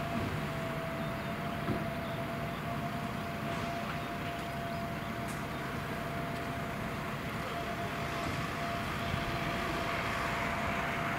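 Embraer 195 airliner's twin CF34 turbofan engines running with a steady whine as it lands. The engine noise grows louder near the end.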